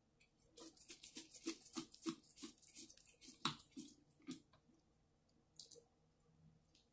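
Faint quick clicks and ticks, about four or five a second, as a small Phillips screwdriver backs out the side-plate screws of an Abu Garcia 5600 C4 baitcasting reel; they stop a little past four seconds in, followed later by two soft clicks.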